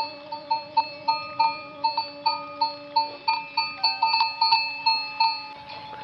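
A livestock bell clanking in a quick, even rhythm of about four strikes a second, stopping near the end.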